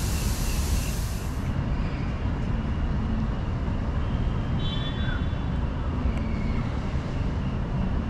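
High-pressure mist jets of an outdoor fog installation hissing, then cutting off abruptly about a second and a half in, since they spray in intervals. Under and after the hiss runs a steady low rumble of city traffic.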